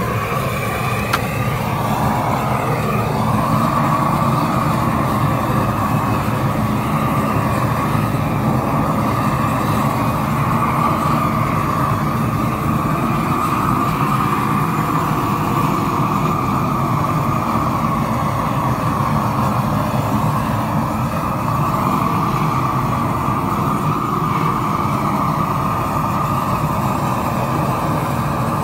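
Propane roofing torch burning steadily at full flame, a constant rushing noise, as it is swept over icy pavers to melt the ice.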